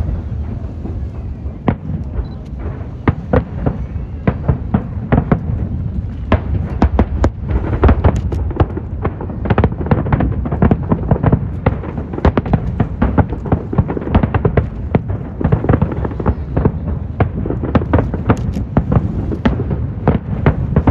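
Fireworks show: a dense, continuous barrage of shell bursts and crackling pops, many per second, over a steady low rumble.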